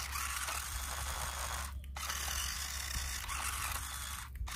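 Toy RC rock crawler's small electric motor and plastic gearbox whirring as its wheels spin in sand, breaking off briefly twice.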